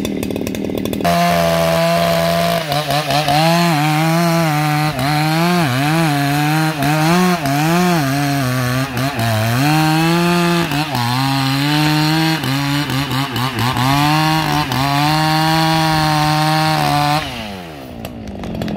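Husqvarna 281XP two-stroke chainsaw at full throttle, cutting into a red eucalyptus trunk. It revs up about a second in, its pitch dips and recovers again and again as the chain loads in the wood, and near the end the revs fall away to idle.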